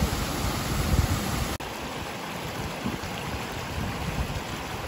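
Steady rush of water from a small waterfall falling into a rocky pool. A sudden cut about a second and a half in gives way to a shallow stream running over rocks.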